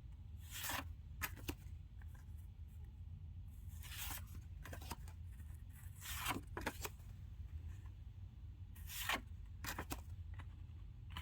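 Paper rustling as old photographs and a paper photo envelope are handled: four short swishes with a few small ticks between them, over a steady low hum.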